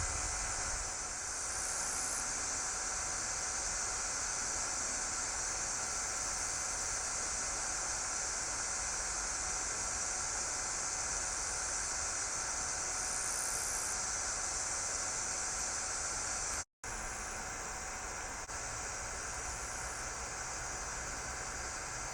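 Steady hiss, strongest in the high range, with faint steady hum tones beneath it; it drops out for an instant about 17 seconds in.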